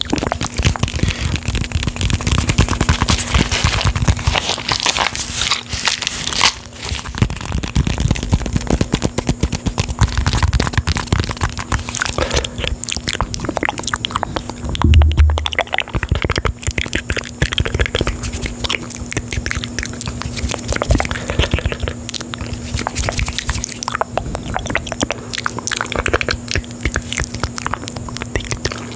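Dense close-miked ASMR crackling, tapping and scratching from hands working on and around a condenser microphone, with one heavier thump about halfway through.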